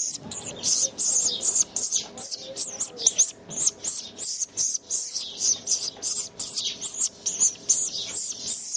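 Bird calling with rapid high-pitched chirps, several a second in a dense run.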